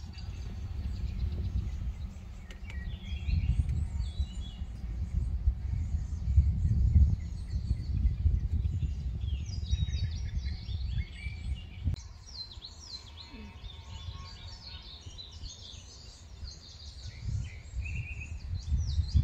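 Wild birds chirping and calling, many short quick notes, busiest in the second half. Underneath runs an uneven low rumble, loudest in the first half and again near the end.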